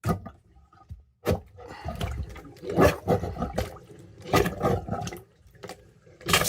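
A deep plastic sink plunger pumped over a drain in standing water, with a series of irregular sucking, gurgling and splashing strokes as it forces air and water into a clogged sink drain to break the blockage loose.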